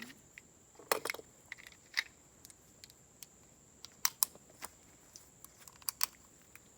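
Light clicks and taps from handling small hard objects, about eight or ten spread unevenly, the sharpest a little after 1 s, at 2 s, around 4 s and near 6 s.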